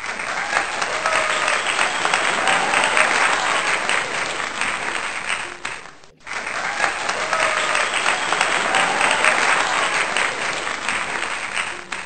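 Crowd applause with cheering, played twice with a brief break about halfway through.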